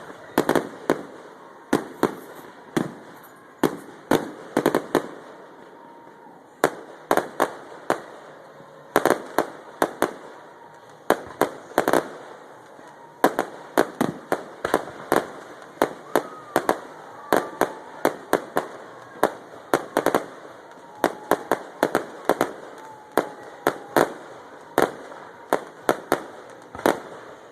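Fireworks bursting in a rapid, uneven barrage of sharp bangs, often several a second in clusters.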